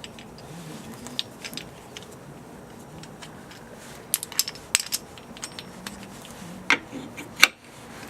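Scattered light clicks and clatters, as of small hard objects being handled, with a cluster about halfway through and the two loudest near the end, over a steady background hiss.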